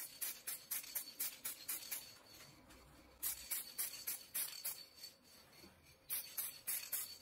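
Aerosol spray can sprayed at the churn's galvanized-steel container in rapid short hissing bursts, about three a second, pausing briefly a couple of seconds in.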